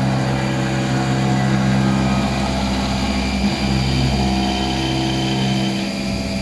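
Milling machine running with a steady hum, briefly dipping about three and a half seconds in.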